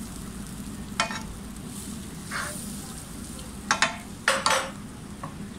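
A spatula stirring milk into a butter-and-flour roux in a nonstick frying pan to make a white sauce, with several short scrapes and knocks of the spatula against the pan, the loudest cluster about four seconds in, over a steady low hum.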